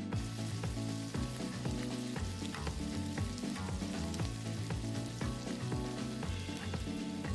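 Steak sizzling on a hot iron serving plate, a dense steady crackle, over background music.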